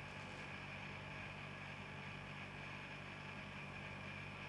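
Faint steady electrical hum of room tone: an even low drone with a fainter high whine above it, unchanging throughout.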